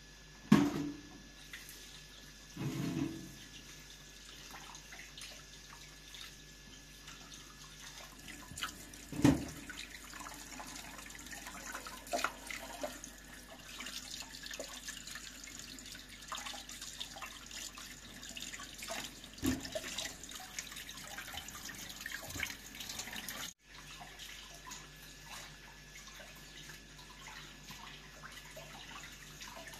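Water splashing and trickling in small bursts, with a few dull thumps standing out above it.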